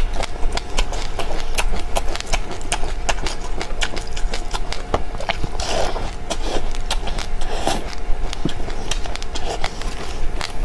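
Seeds crunching as they are chewed: a rapid, irregular run of crisp clicks, several a second, over a steady low hum.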